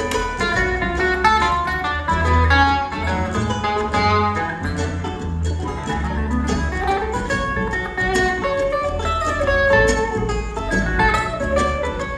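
Live bluegrass band playing an instrumental passage: quick picked runs on acoustic guitar and mandolin over a steady upright bass.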